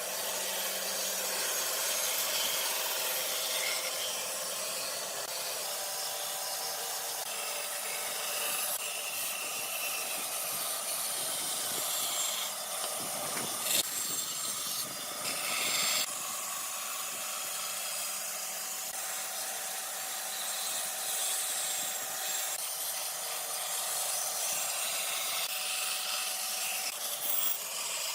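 Electric power tool running steadily against wood, a rubbing, abrasive hiss over a faint motor tone, as in sanding or grinding the surface.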